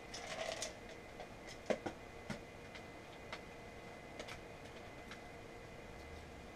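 Handling of a small plastic tool kit: a brief rustle, then a few sharp clicks and scattered light ticks as it is opened and sorted through, over a faint steady hum.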